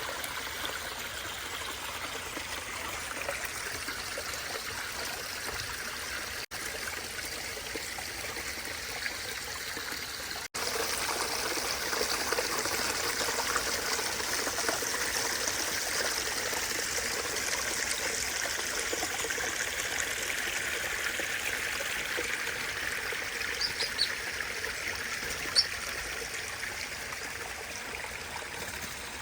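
Water running and trickling over rocks down a pondless waterfall and stream, a steady splashing rush. It cuts out briefly twice and runs louder after the second break, about ten seconds in, and a couple of short high sounds come near the end.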